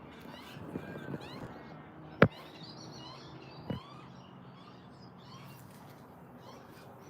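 Several small birds chirping continuously with quick gliding chirps. A single sharp click, the loudest sound, comes about two seconds in, with a few softer clicks around it.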